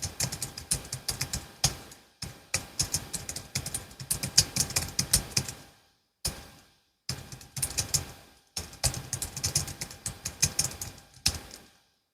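Typing on a Logitech MX Keys S low-profile keyboard: runs of quick key clicks broken by short pauses, stopping shortly before the end.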